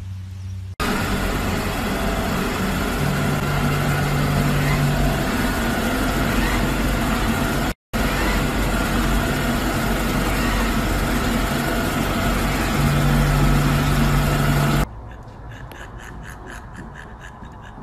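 Samsung robot vacuum running with a loud, steady whir and a low hum that swells twice, cut off for an instant about eight seconds in. It gives way to a much quieter sound about fifteen seconds in.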